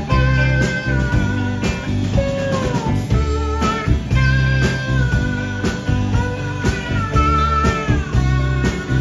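Live rock band playing: an electric guitar plays a lead line of long held notes that slide and bend in pitch, over bass guitar and drums with a steady beat.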